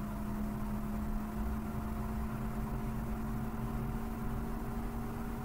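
Steady low machine hum with a constant tone running through it, unchanging throughout.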